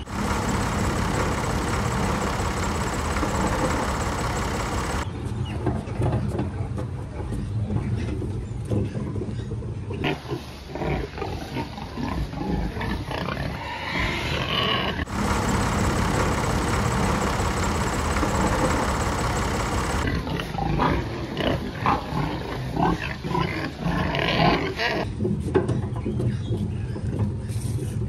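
Stretches of a heavy machine's engine running steadily, heard from inside its cab, cut abruptly every five seconds or so with stretches of pigs grunting and squealing in a pig barn.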